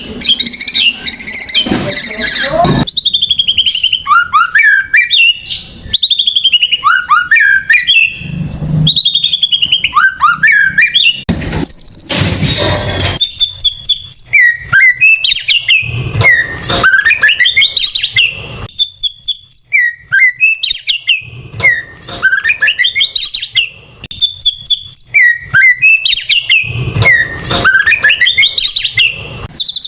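White-rumped shama (murai batu) singing loudly: rich whistled phrases of sweeping, falling notes, repeated every couple of seconds, of the kind played to provoke caged shamas into singing.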